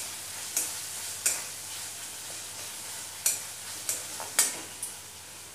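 A metal spatula scraping and knocking against a metal kadhai about six times as chopped onion, tomato and peanuts sizzle in oil, being stirred and mashed. Under the strokes, a steady sizzling hiss.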